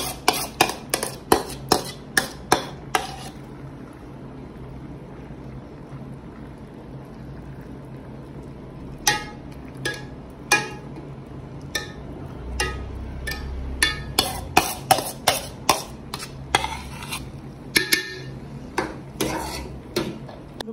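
Spoon clinking and scraping against a cooking pot as chicken masala is spread over a layer of rice. A quick run of sharp taps comes in the first three seconds, then a pause, then more taps from about nine seconds in, over a steady low hum.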